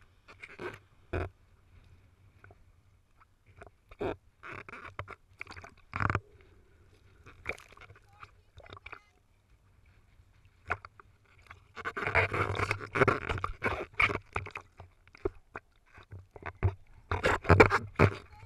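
Sea water slapping and sloshing against a half-submerged action camera as it bobs in small waves, in irregular splashes, with a thicker run of splashing a little past the middle and again near the end.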